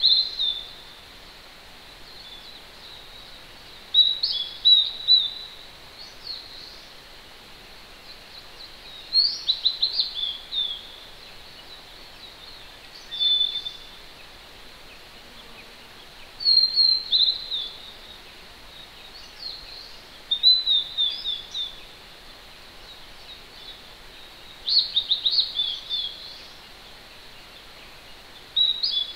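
A songbird sings short phrases of quick, down-sliding whistled notes, one phrase every four seconds or so, eight in all. Beneath them runs the steady rush of a distant mountain stream.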